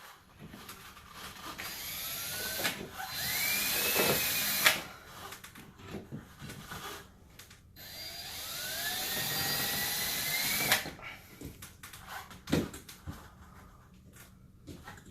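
Power drill boring pilot holes through the sheet-metal register box, in two runs of a few seconds each, its whine rising in pitch as it spins up and cutting off sharply. Scattered knocks and handling clicks come between and after the runs.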